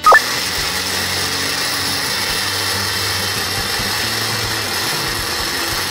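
Electric welding arc from a 100 V inverter welder, struck right at the start and then burning as a steady hiss. The arc is stable at 60% output.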